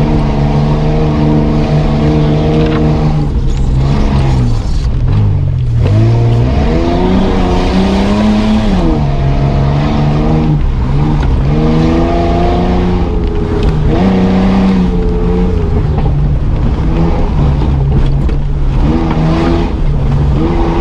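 Mitsubishi Pajero's engine heard from inside the cabin, pulling hard through mud on a forest trail, its note rising and falling several times as the throttle is worked.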